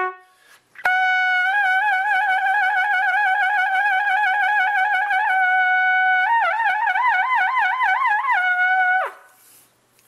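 Trumpet holding a high written A-flat and shaking it: a narrow, rapid lip trill for about four seconds, a brief steady stretch, then a wider shake about four times a second reaching higher. The note is then held plainly and drops off sharply near the end.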